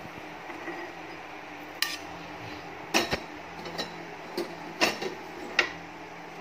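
Metal kitchen utensils and a pan clinking and knocking as ghee-roasted cashews are tipped from a frying pan into a glass bowl. There are about six sharp irregular knocks, the loudest about three and five seconds in, over a low steady hum.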